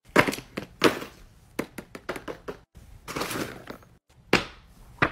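Silicone fidget toys (pop-it, simple dimple, pop tube) handled and set or dropped onto a paper sheet over carpet: a string of light taps and thunks, with a longer scraping rustle about three seconds in.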